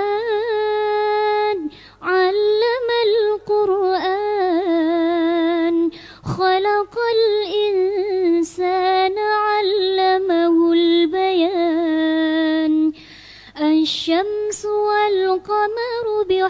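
A girl's high voice reciting the Quran in melodic tajweed chant, holding long, ornamented notes in phrases broken by short pauses for breath.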